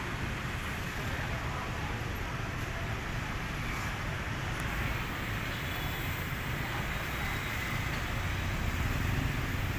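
A small wooden boat's stern-mounted motor running steadily, a constant low rumble.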